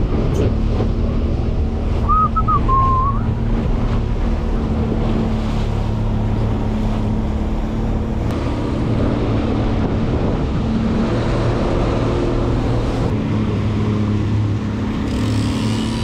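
Boat engine running steadily at trolling speed, with wind buffeting the microphone and water rushing past the hull. A short two-note whistle sounds about two seconds in.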